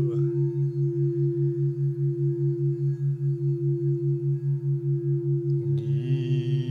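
Brain-entrainment background track: a low tone pulsing rapidly and evenly under a steady higher drone. Near the end, a man's voice comes in over it with a long chanted tone.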